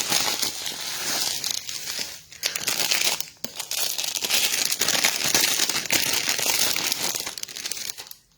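Packaging being unwrapped from an acrylic plaque: wrapping crinkling and crumpling in handling, with a little tearing, dropping off briefly twice and stopping near the end.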